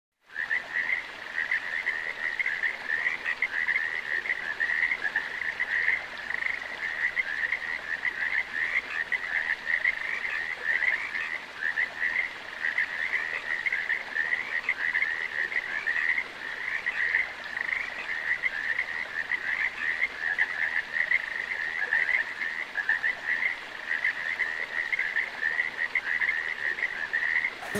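A dense chorus of frogs calling, many overlapping trills at one high pitch. It starts abruptly and cuts off suddenly at the end.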